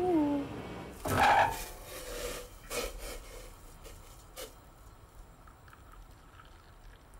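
Kitchen clatter: a few sharp knocks and clinks of a cooking pot and mug, the loudest about a second in, then quieter.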